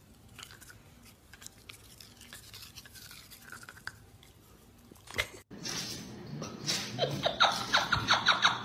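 Broom bristles sweeping a hardwood floor in quick rhythmic strokes, about six a second, getting louder from about five and a half seconds in. Before that there are only faint small sounds.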